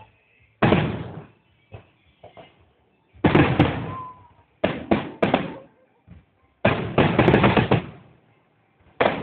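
Fireworks exploding: separate loud bangs, each fading over about half a second. One comes about half a second in and another about three seconds in, then three quick bangs around five seconds and a dense run of bangs about seven seconds in.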